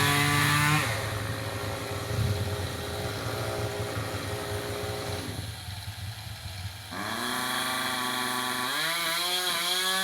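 Two-stroke chainsaw running. It revs high, then drops to a lower, rougher speed for several seconds before revving back up about two-thirds of the way through and climbing again near the end.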